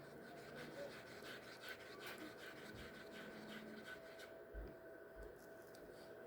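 Faint scraping and ticking of a stick stirring a cup of white mix, which thins out about two-thirds of the way through, over a faint steady hum.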